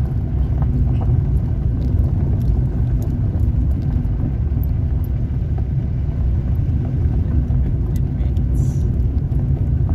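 Car driving on a gravel road, heard from inside the cabin: a steady low rumble of engine and tyres on gravel, with a few faint scattered clicks.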